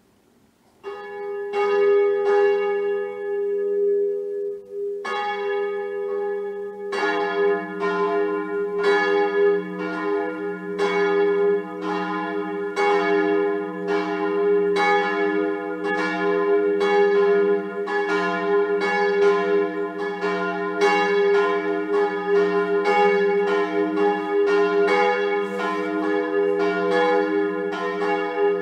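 Church bells ringing. A single bell starts about a second in, more bells join at about five and seven seconds, and they then ring on together, their strokes overlapping.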